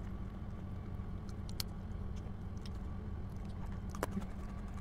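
Quiet eating sounds: faint chewing and a few small, scattered clicks as fingers pick at grilled chicken, over a steady low background hum.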